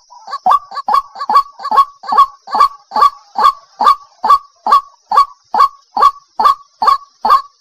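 White-breasted waterhen (ruak-ruak) calling, a female's call used as a lure to draw in males: short harsh calls repeated quickly and evenly, about two a second.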